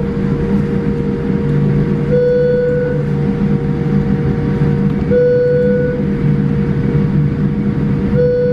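Cabin sound of a Boeing 787-8 airliner taxiing: a steady low drone, with a short tone sounding about every three seconds and lasting under a second each time.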